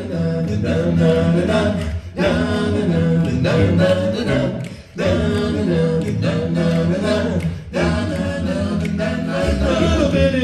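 Five-man a cappella vocal group singing in harmony, male voices only, in phrases broken by short breaths about every two to three seconds.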